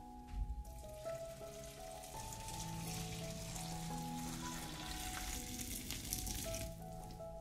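Food sizzling as it fries in a hot pan, a fine steady crackle that stops shortly before the end, over soft background music.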